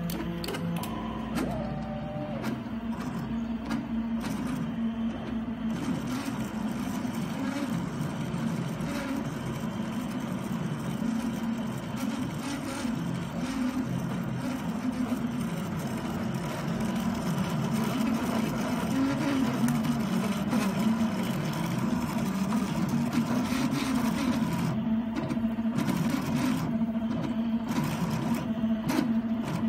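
Delta food printer's stepper motors whirring and buzzing in shifting tones as the arms move the nozzle to pipe batter onto the pan, over a steady hum.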